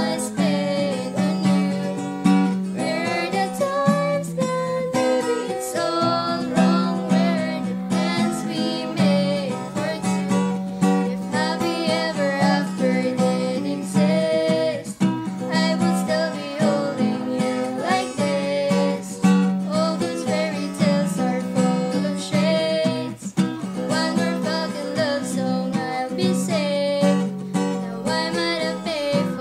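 Acoustic guitar playing a song, strummed with a steady rhythm.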